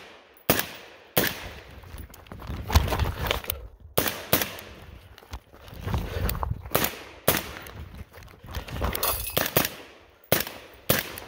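Rifle fired repeatedly: about fifteen sharp shots at irregular spacing, some in quick pairs, each ringing out briefly.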